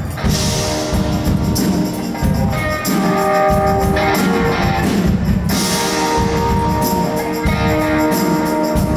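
Live band music between vocal lines: an instrumental break with guitar and a steady beat that includes tambourine.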